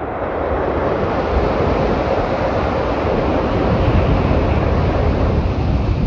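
Shinkansen bullet train crossing a steel truss bridge at speed: a rushing rumble of wheels on rails and bridge steel that swells to its loudest a few seconds in and begins to fade near the end.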